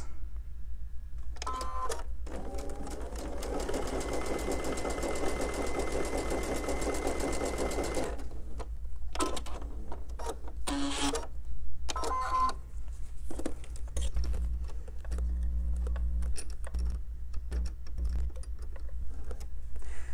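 Sewing machine stitching steadily for about six seconds, starting about two seconds in, then stopping, followed by scattered clicks and handling knocks.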